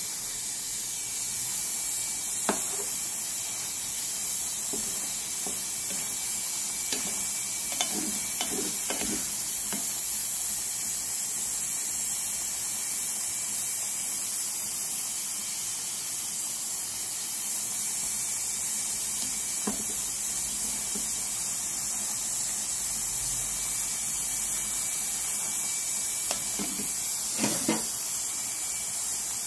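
Steady hiss of steam, which the cook puts down to a pressure cooker venting beside a pan of octopus, shrimp and mushrooms simmering down in sauce. A few light clicks of a spatula in the pan, about two seconds in, around eight seconds, near twenty seconds and near the end.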